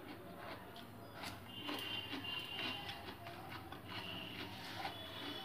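Eating by hand: fingers mixing and squeezing rice with fish curry on a steel plate, with many small wet clicks and chewing. A thin high tone sounds twice in the background.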